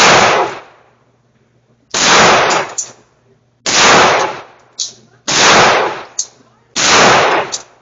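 Five gunshots fired at a steady pace, about one and a half seconds apart, each loud and cracking with a short echoing tail.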